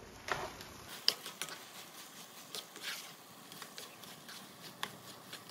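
Plastic spatula stirring rice and sausage in a nonstick skillet, scraping and tapping against the pan in irregular light scrapes and clicks, the sharpest about a second in.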